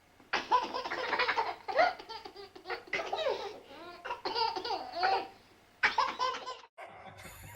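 A baby laughing hard in repeated bursts of high giggles.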